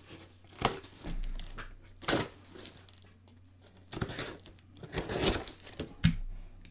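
Cardboard shipping box being cut and torn open with a knife: irregular bursts of packing tape tearing and cardboard crinkling.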